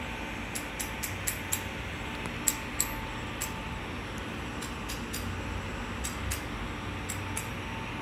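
Railway station ambience beside standing electric trains: a steady low hum with many short, sharp metallic ticks scattered at irregular intervals.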